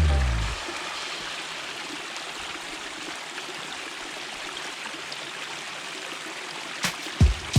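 Water of a pondless waterfall running steadily over rocks, an even rushing splash. A trailing note of music dies away at the start, and three sharp thumps come in near the end.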